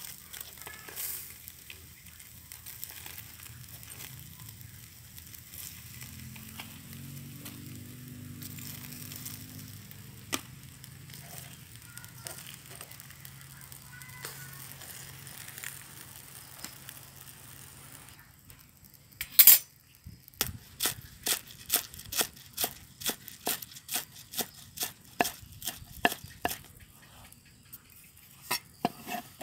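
Whole fish sizzling and crackling faintly on a wire grill over a charcoal stove, with the scrape of metal tongs as they are turned. After a single loud knock, a cleaver chops spring onions on a wooden board, about two chops a second.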